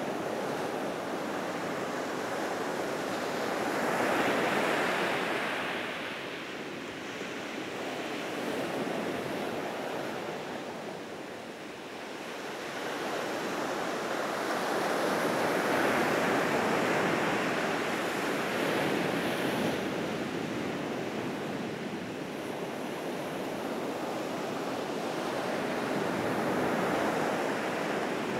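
Atlantic surf breaking on a sandy beach: a steady wash of waves that swells and eases every ten seconds or so as each set comes in.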